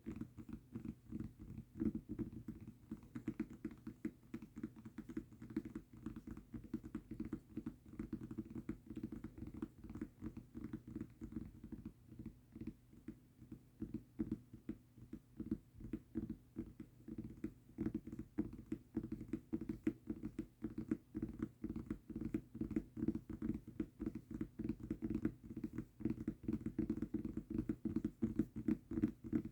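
Rapid, continuous tapping on a mousepad, a dull, low patter of many taps a second.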